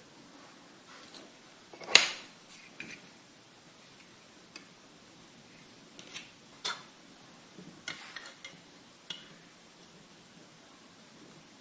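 Sparse light clicks and knocks of small plastic toy pieces being handled and set down, the sharpest about two seconds in.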